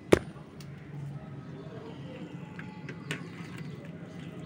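A sharp knock just after the start, the loudest sound, then soft handling noise as bare hands mix small fish with sliced potato in a steel bowl. A second, lighter tap comes about three seconds in.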